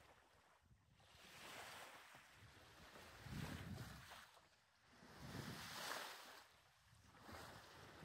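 Faint wash of water along a small sailing yacht's hull as it moves through light seas, swelling and fading every two seconds or so.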